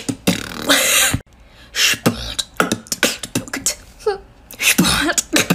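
A woman beatboxing: rapid mouth clicks and hissing strokes in a quick rhythm, with a few short hummed notes about four and five seconds in.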